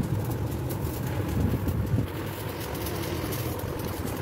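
A steady low rumble, with faint snips of scissors cutting through rubber inner-tube.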